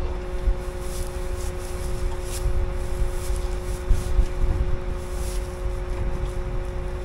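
Air seeder closing-wheel pressure being adjusted by hand on the row units: a few light clicks of the adjusters. Under them run a constant low rumble of wind on the microphone and a steady two-note machine hum.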